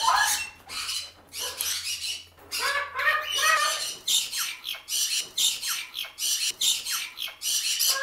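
Parrots squawking over and over in quick succession, roughly two short calls a second, with some more voice-like calls in the first few seconds.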